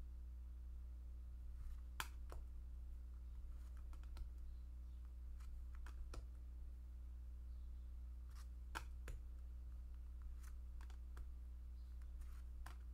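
Tarot cards being flipped through by hand, card edges sliding and tapping against each other in a faint, irregular series of soft clicks. A steady low hum runs underneath.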